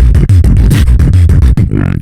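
Human beatboxing: deep, buzzing bass tones broken up by sharp snare-like clicks in a fast rhythm. Near the end the heavy bass gives way to more voice-like sounds.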